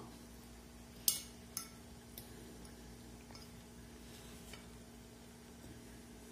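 A metal fork clinking against a ceramic plate a few times, the sharpest about a second in, over a faint steady hum.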